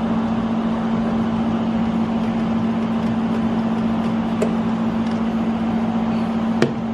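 Steady hum of a running machine, with one strong low tone, and two faint clicks, one a little past the middle and one near the end.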